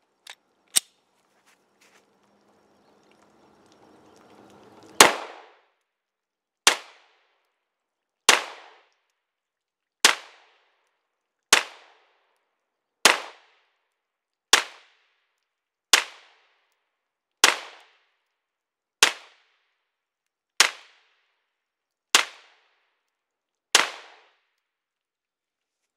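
Thirteen 9mm pistol shots from a Polymer 80 Glock-pattern pistol with an aftermarket slide, slow aimed fire at about one shot every second and a half, beginning about five seconds in. Before them, a single sharp metallic click about a second in as a failure to feed is cleared.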